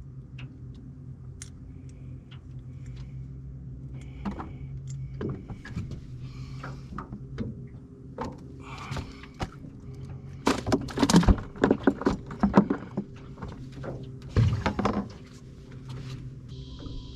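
Scattered clicks and knocks, with two bursts of louder knocking and clattering past the middle, over a steady low hum. A hiss starts near the end.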